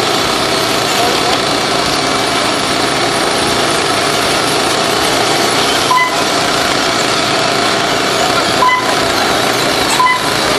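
Traxxas Slash radio-controlled short-course trucks racing: a continuous, dense whine of several small motors at once. Three short electronic beeps sound over it, about six, nine and ten seconds in.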